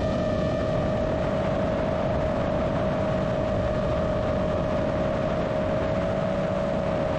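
GEPRC Vapor D6 FPV drone's brushless motors and propellers whining at a steady cruising throttle, one held tone drifting slightly lower, over a constant rush of air noise.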